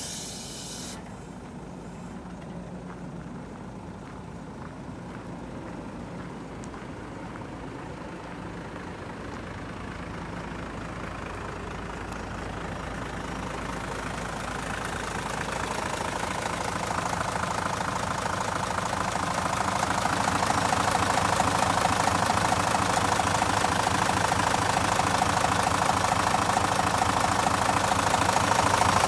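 Mitsubishi Aero Midi bus's 6D17 inline-six diesel engine idling. It grows steadily louder as the open rear engine compartment is approached.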